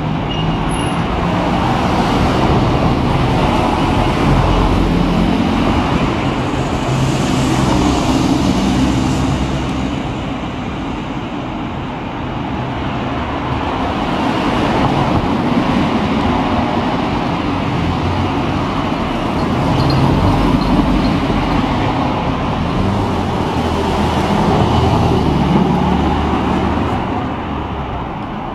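Road traffic: cars and vans driving past one after another, the sound swelling and fading as each goes by.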